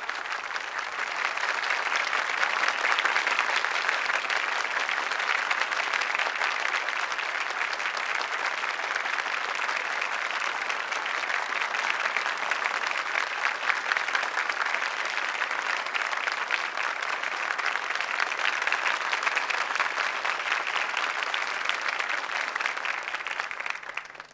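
Studio audience applause: a large crowd clapping, swelling up over the first couple of seconds, holding steady for about twenty seconds, then stopping abruptly near the end.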